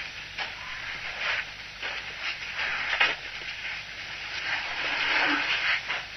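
Elephants drinking at a waterhole: irregular splashes and crackles over a steady hiss, swelling to a louder rush about five seconds in.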